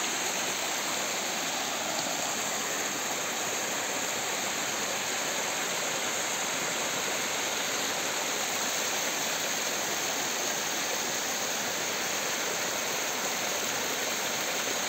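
A shallow rocky creek running over small cascades, water splashing steadily down the little drops.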